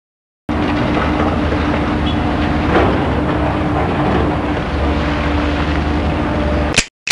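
Steady mechanical rumble with a low hum and a steady droning tone, starting abruptly about half a second in and cut off sharply near the end.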